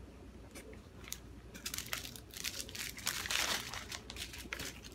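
Thin plastic bags crinkling and rustling as small packets of diamond painting drills are handled and rummaged through inside a zip-lock bag, with scattered light clicks and a busier stretch of rustling past the middle.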